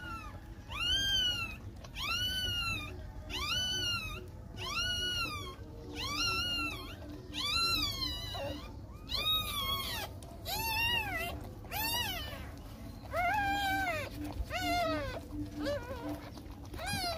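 Newborn puppies crying, squeaky whines about one a second, each rising then falling in pitch; from about eight seconds in the cries come lower-pitched.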